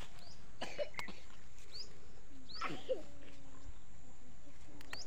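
Small birds chirping in short rising calls, about one a second, over a steady outdoor background hiss. A few faint snaps come as green garlic leaves are broken off by hand.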